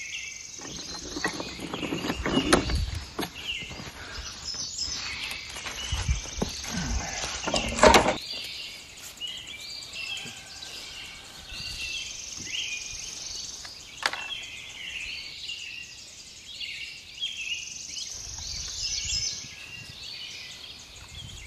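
Small birds chirping and twittering throughout, over bouts of clatter and thumps in the first eight seconds, the loudest knock about eight seconds in, and a single sharp click about fourteen seconds in.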